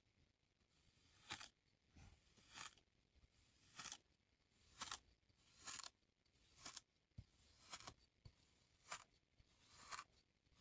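A round metal tube cutter is pushed down into molded kinetic sand cylinders, cutting one after another. Each cut is a soft, short, gritty crunch, about once a second.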